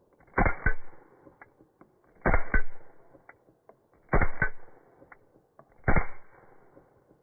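Four shots from a suppressed .22 LR Beretta Model 71 pistol with an AWC Archangel II suppressor, fired at a steady pace about two seconds apart. Each shot is a sharp double crack that dies away quickly.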